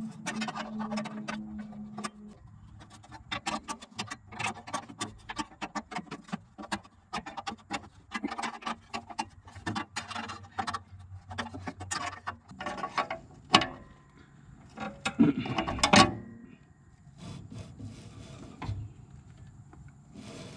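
Socket ratchet clicking in quick runs as bolts are tightened on the underside of a riding mower's deck, with two louder metal knocks a little past halfway.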